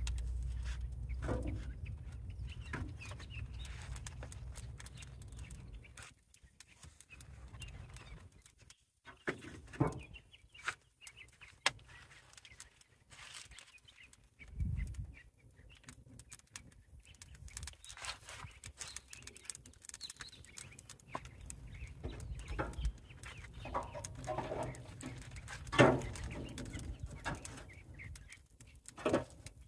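Split firewood and a metal grate knocking and clanking against a steel barrel grill at scattered moments as logs are loaded onto the fire, the loudest knock near the end. Chickens cluck in between.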